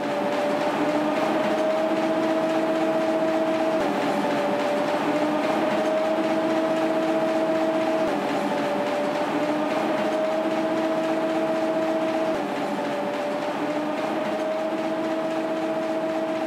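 Newspaper web printing press running: a loud, steady mechanical roar with a hum whose pitch creeps up and drops back about every four seconds.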